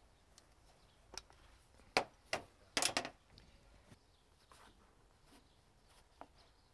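A few sharp clicks and knocks, bunched between about one and three seconds in, from a caulking gun being worked and handled while laying a bead of silicone sealant, with a few fainter clicks later.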